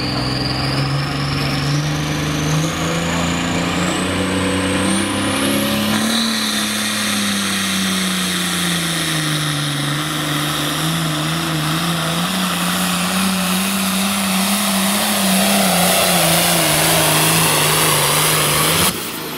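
Turbocharged International Harvester diesel pulling tractor at full throttle under the load of a weight-transfer sled. The engine climbs in pitch over the first few seconds while a turbocharger whistle rises steeply above it, then it runs hard at high revs, its pitch wavering as it pulls. The sound cuts off abruptly near the end.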